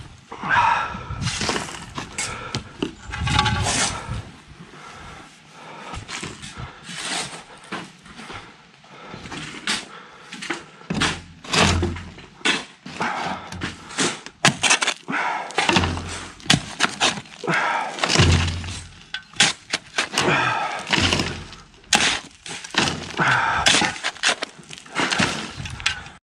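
Steel shovel scraping and chopping into rocky, gravelly soil and dumping it over corrugated plastic drain pipe: a rapid, uneven run of gritty scrapes and knocks. Heavy huffing and puffing of the person digging is close to the microphone.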